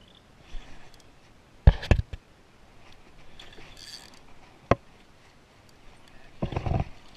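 Close handling noise from hands working a fishing lure and spinning reel near the camera: two or three sharp knocks about two seconds in, another about five seconds in, and a longer rough scuffing noise near the end.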